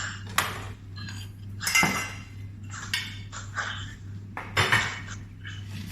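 Kitchen knife slicing a shallot on a cutting board: a few irregular knocks of the blade striking the board.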